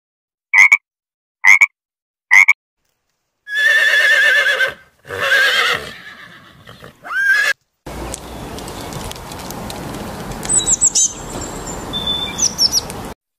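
A frog croaking three times, evenly spaced, then a horse whinnying in two long, wavering calls ending in a short rising call. After that comes a steady outdoor background with a few brief, high bird chirps.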